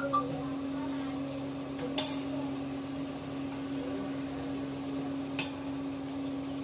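Kai pathiri frying in hot oil in an iron kadai, the oil bubbling over a steady hum, while a steel slotted skimmer clinks sharply against the pan twice, about two seconds in and again after five seconds.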